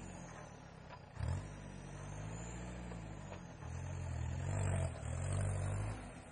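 Off-road 4x4's engine revving in surges under load as it crawls along a steep slope, its pitch rising and falling. It dips briefly about a second in, revs louder in the second half, then eases off near the end.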